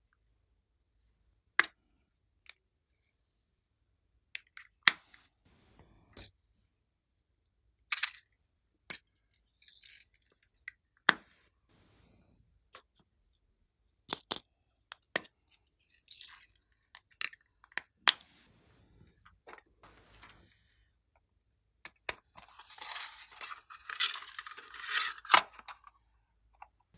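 Clear slime being handled and mixed: scattered sharp clicks and pops with short sticky crackles, and a denser run of crackling near the end.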